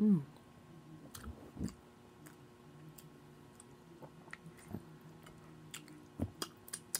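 A person eating close to the microphone: chewing with wet mouth smacks and a scattering of sharp clicks. A short vocal sound falling in pitch opens it.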